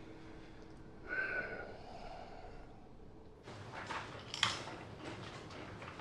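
Quiet room tone with a faint steady hum, a short soft sound about a second in, then a few scattered soft clicks and knocks in the second half, one louder than the rest.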